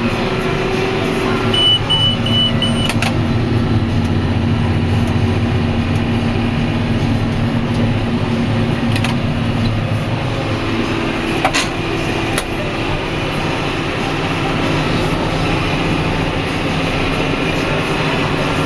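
John Deere 6930 tractor running steadily under load, pulling a John Deere 852 round baler. A short run of high electronic beeps sounds about two seconds in, and a few light knocks follow later.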